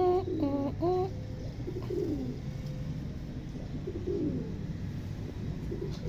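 Pigeons cooing: a run of short falling coos, loudest in the first second, then softer coos every second or so, over a steady low hum.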